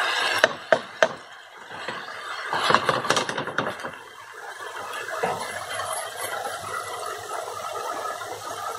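Chicken and corn sizzling in a wok while a wooden spatula stirs and scrapes them, with three sharp knocks of the spatula on the pan in the first second and a louder burst of stirring a little later.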